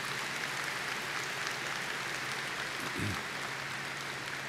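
Audience applauding, a steady spread of many hands clapping that starts to fade near the end.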